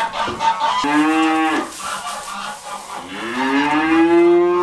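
Goats bleating: a short call about a second in that drops away at its end, then a longer call from about three seconds in that rises and holds.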